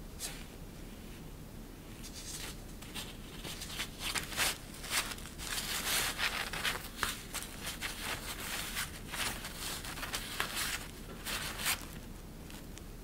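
Crinkly plaid fabric sheet rustling in irregular bursts as a cat-teaser wand is dragged across it and poked underneath, starting about two seconds in and dying away near the end.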